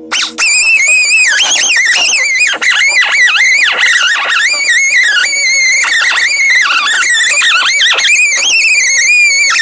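A handheld rotary tool with a small wheel whining at high speed against rusty metal, its pitch wavering and dipping again and again as it is pressed into the work while stripping rust from the floor pan and frame rail.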